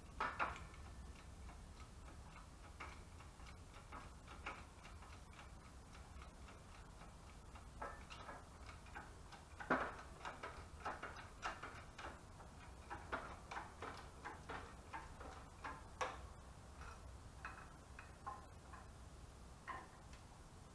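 Faint, irregular clicking and ticking from a hand-pumped hydraulic shop press working U-joint bearing caps out of a double cardan drive shaft yoke. Sharper clicks come just after the start and about ten seconds in.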